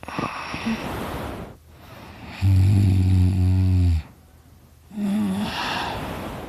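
A person snoring in sleep: a noisy breath, then a loud, low, rumbling snore lasting about a second and a half, then another breath. The snorer puts his snoring down to extra tissue in his throat.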